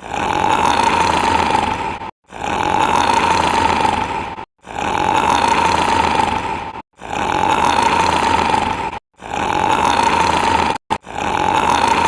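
Very loud snoring in a steady rhythm: a rough, rasping snore lasting about two seconds, repeating roughly every two and a bit seconds, with a short abrupt break to silence between each.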